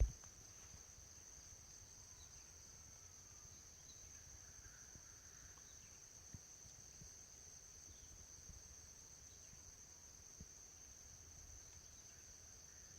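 Faint, steady, high-pitched drone of insects in the forest, with a few faint isolated knocks.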